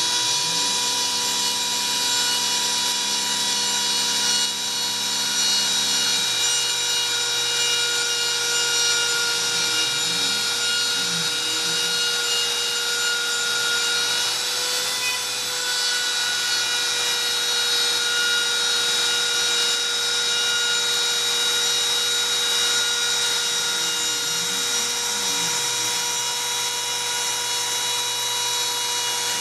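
Homemade CNC router milling carbon fiber plate: the cutting spindle runs at a steady high speed with a constant whine while the bit grinds through the sheet. A lower motor hum sweeps up and down in pitch a few times as the machine's axes speed up and slow down.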